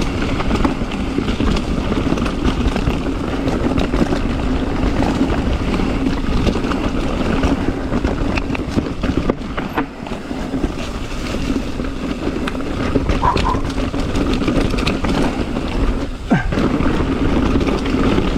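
Wind rushing over the camera microphone while a mountain bike rolls fast down a rocky trail, tyres and bike clattering over the rocks in scattered sharp knocks over a steady low rumble.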